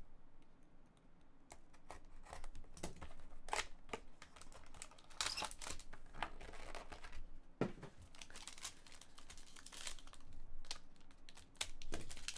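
Packaging being torn and crinkled in the hands as a trading-card box is unwrapped and opened: irregular rustling and tearing of plastic shrink wrap and cardboard, ending with a foil card pack crinkling.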